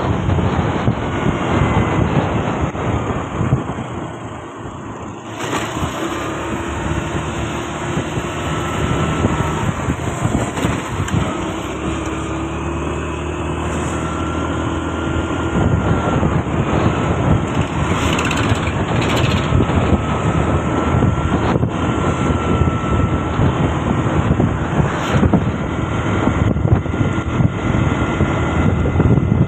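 Motorcycle running steadily at riding speed, its engine note mixed with wind noise on the microphone; the sound drops briefly about four seconds in, then picks up again.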